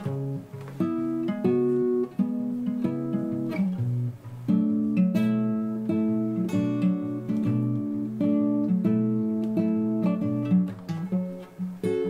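Solo acoustic guitar playing an instrumental passage of picked notes and chords, changing about every half second.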